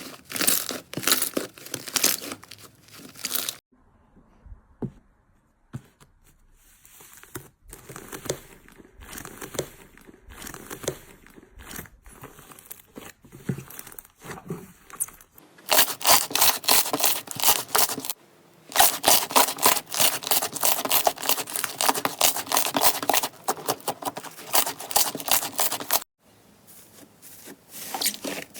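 Slime being squeezed, stretched and pulled apart with dense crackling and crinkling, in a series of short clips that change abruptly, with a quieter, softer stretch in the first half.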